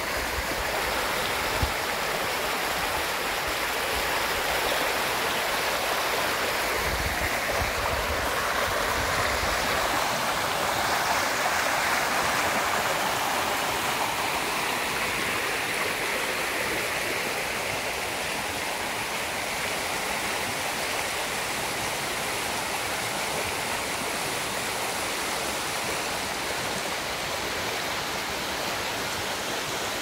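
Shallow rocky stream rippling and babbling over stones and fallen branches: a steady rush of running water.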